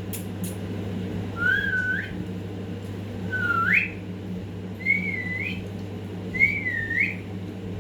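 Pet parrot whistling four short notes about a second and a half apart, each sliding up in pitch at its end, over a steady low hum.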